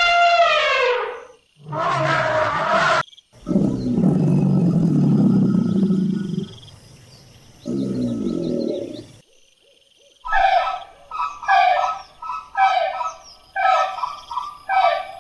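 A string of animal calls: a long falling call, then a deep roar for about three seconds, a shorter roar, and after a pause about six short calls in quick succession.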